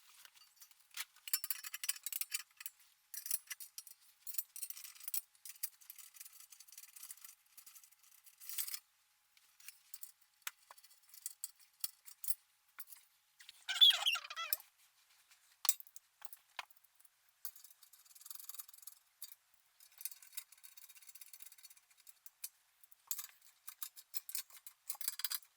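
Small metal parts, nuts, bolts and steel frame pieces, clicking and clinking as the frame is bolted together and tightened, with one louder, brief scraping squeak about fourteen seconds in.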